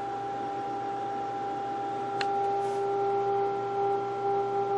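Philco 37-640 radio's speaker playing a steady test tone from a signal generator fed into the set, over a background hiss, with a single click about two seconds in. The tone grows stronger a little later. It is the sign that the restored receiver is passing the signal, though weakly, with the volume all the way up.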